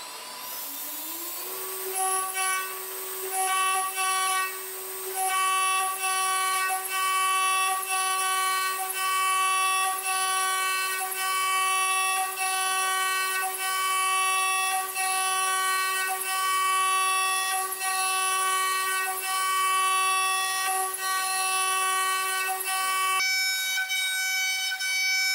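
CNC router spindle spinning up to speed, its whine rising for the first second and a half, then a 2 mm end mill engraving brass at 22,000 RPM: a steady high whine with shrill cutting overtones that dip briefly about once a second. About two seconds before the end the low whine cuts off and the tone changes.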